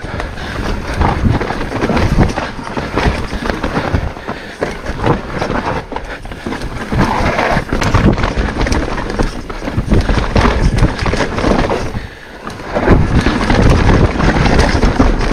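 Mountain bike riding down a rocky, rooty dirt trail: tyres rolling over dirt and rock, with many short knocks and rattles from the bike. Wind rumbles on the microphone, heaviest near the end.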